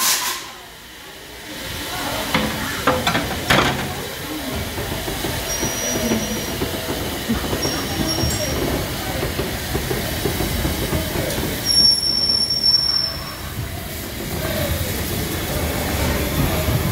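LMS Jubilee Class three-cylinder 4-6-0 steam locomotive No. 45690 moving off slowly. It gives a few sharp beats about three seconds in, then rolls on with a steady rumble. Three short, high wheel squeals come over it, the last and longest about two-thirds of the way through.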